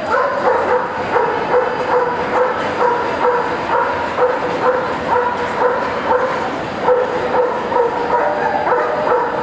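A dog barking repeatedly in short, even yaps, about two a second, without a break.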